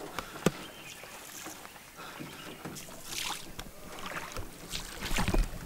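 Small rowed boat moving through calm river water, its oar strokes splashing and swishing, with one sharp knock about half a second in.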